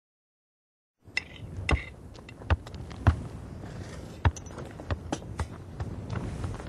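A series of sharp knocks and clicks at irregular intervals over a low background hiss, starting after a second of silence.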